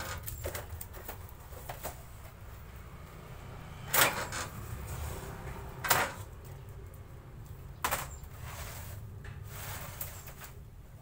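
Dry wood veneer sheets being handled: crisp rustling with three sharp slaps or clacks about two seconds apart, over a steady low rumble.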